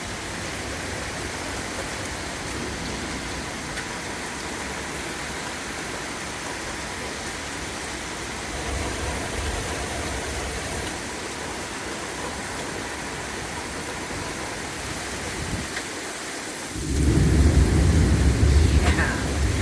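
Heavy rain pouring steadily with an even hiss. About seventeen seconds in, a loud low rumble of thunder rolls in and carries on to the end.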